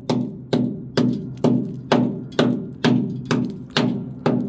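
Hammer tapping a rusty steel boat hull in a steady rhythm, about two strikes a second, each blow ringing briefly with a low tone. The hull is being sounded to check how solid the metal under the rust is.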